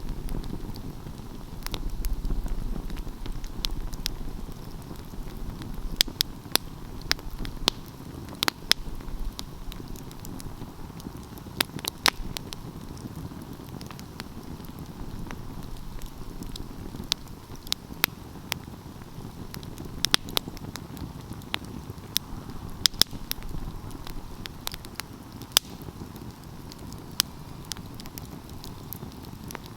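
Wood fire burning, with irregular sharp crackles and pops over a steady low rush of flames.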